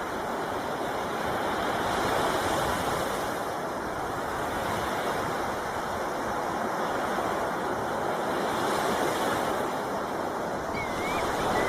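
Sea waves washing onto a beach in a steady surf, swelling slightly now and then, with a few short high chirps near the end.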